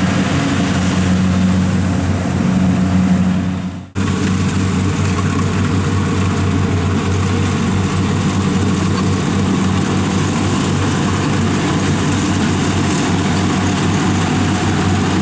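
Kubota combine harvester's diesel engine running steadily while cutting rice, a continuous low hum with machinery noise over it. The sound drops out for an instant about four seconds in, then resumes unchanged.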